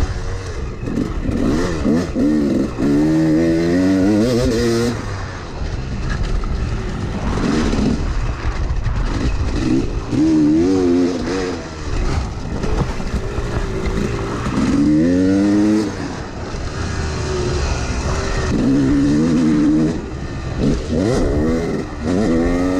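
Yamaha YZ250X two-stroke dirt bike engine heard from on the bike while riding. It revs up in repeated rising sweeps, dropping back between gear changes and throttle blips.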